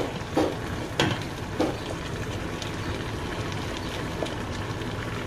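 Sliced bell peppers tipped from a plastic bowl into an open pot of simmering vegetables, with four soft knocks in the first couple of seconds. A steady sizzling hiss from the simmering pot runs underneath.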